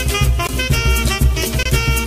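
Upbeat instrumental music with a strong, pulsing bass beat.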